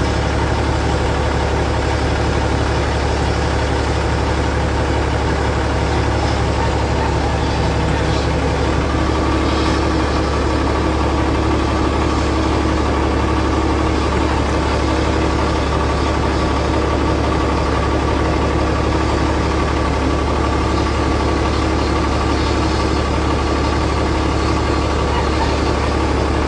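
A steady engine drone heard from inside a heavy machine's cab, with a steady higher whine joining about a third of the way in.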